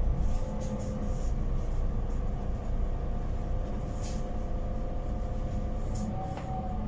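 Inside a moving city bus near the front: the drivetrain runs with a steady low rumble and a faint steady whine, with two short hisses about four and six seconds in.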